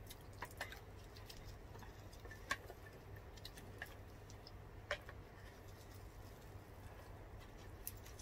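Faint, scattered clicks and small crackles of eating by hand: fingers pulling apart grilled milkfish and a spoon touching a bowl, with the sharpest clicks about two and a half and five seconds in, over a low steady hum.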